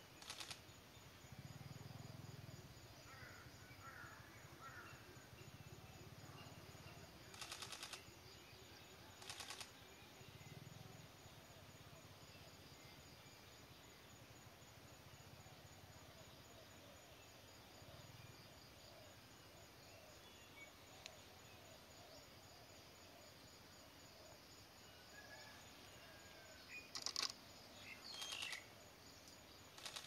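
Quiet forest ambience with a few faint bird chirps, broken five times by short bursts of a rapid, dry rattle, each under a second long.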